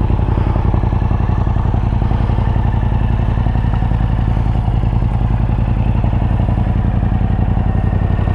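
Yamaha MT-07's 689 cc parallel-twin idling steadily through an Akrapovic 2-into-1 carbon exhaust with the baffle fitted: a low rumble.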